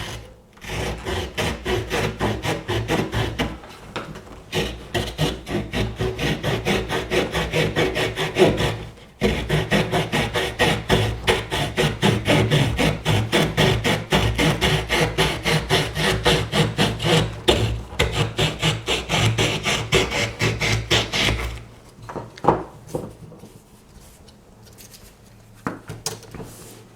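Victorinox Huntsman Swiss Army knife's small folding wood saw cutting through a tree branch in quick, even back-and-forth strokes, with a short break about nine seconds in. The sawing stops about twenty-one seconds in, and a few light knocks follow.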